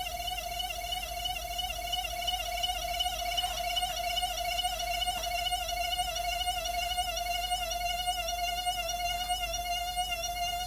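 Pulse motor's trigger and power coils singing in resonance: a steady, high-pitched whine with a slight waver in pitch.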